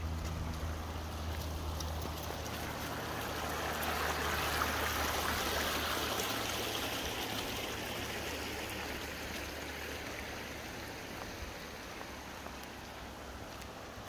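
Shallow river running over stones and gravel, a steady rushing water noise that swells about four seconds in and slowly fades toward the end. A low steady hum sits underneath during the first half.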